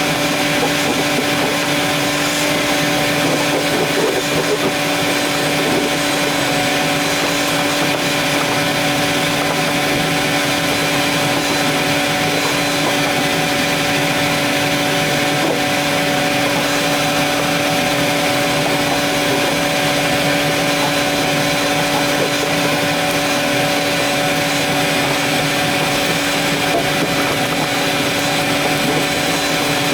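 Vacuum cleaner running steadily at an unchanging pitch while cleaning out a car's stripped interior.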